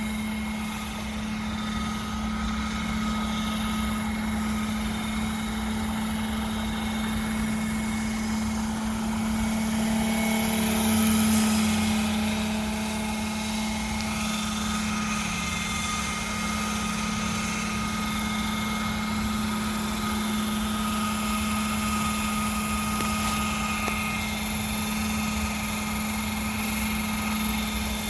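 Hirobo Dauphin radio-controlled model helicopter running in flight: a steady drone with a thin high whine over it. It grows louder about eleven seconds in, then settles back.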